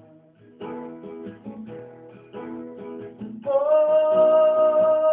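Song accompanied by strummed acoustic guitar chords. About three and a half seconds in, a long, steady high note comes in and is held over the guitar, louder than the strumming.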